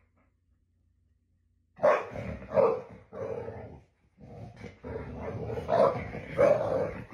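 A dog barking and growling in play. It starts about two seconds in with a few short barks, then runs into a longer stretch of rapid growly barking.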